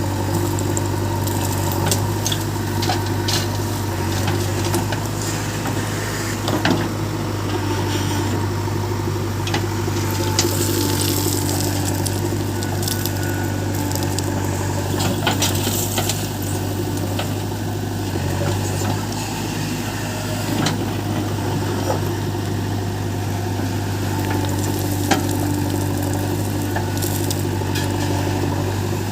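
Diesel engine of heavy earthmoving machinery running steadily, with scattered knocks and rattles of gravelly earth and metal as material is loaded.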